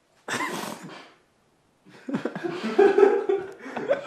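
A man laughing: a short breathy outburst about a third of a second in, then continuous laughter from about two seconds on.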